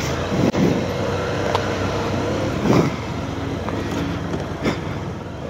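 Motorcycle engine running steadily at low revs, with a few short clicks over it.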